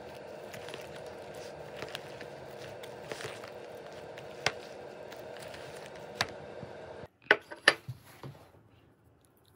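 Metal chopsticks tossing vegetables and sauced noodles in a plastic takeout container: soft rustling and scattered clicks, then a quick run of sharp clicks against the container about seven seconds in.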